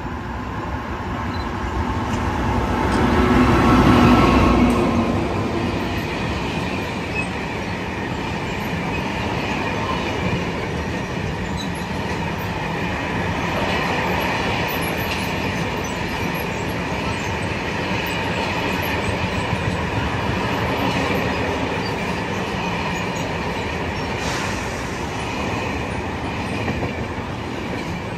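Freight train hauled by an FS E652 electric locomotive passing at speed. It is loudest about four seconds in, then the wagons roll by in a long steady rumble with a high ringing squeal from the wheels.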